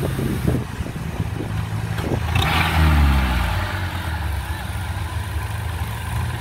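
Engine of a tracked rice-sack carrier running steadily as it drives, with a louder rushing burst about two and a half seconds in.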